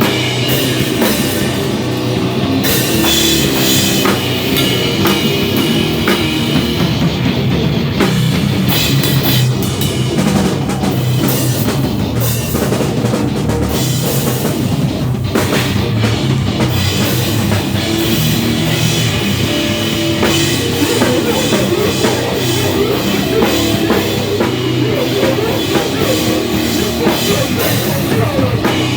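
A live rock band playing loud, heavy rock, led by a pounding drum kit.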